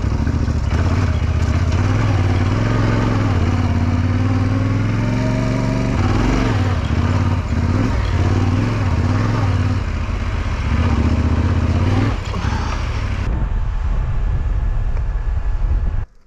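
Yamaha Ténéré 700's parallel-twin motorcycle engine running under load while riding off-road, its pitch rising and falling with the throttle. The engine sound cuts off abruptly just before the end.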